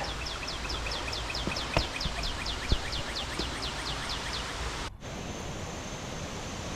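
Steady rush of waterfall water, with a bird giving a fast run of short, high, falling notes, about six a second, that stops about four and a half seconds in.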